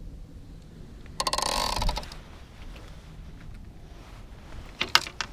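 Baitcasting reel's line-out clicker buzzing for about a second as a fish pulls line off the dead-bait rig in the rod holder. A few sharp clicks and knocks follow near the end.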